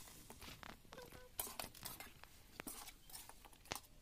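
Faint frying of chicken pieces in a steel kadai, with scattered short clicks and scrapes of a steel ladle against the pan.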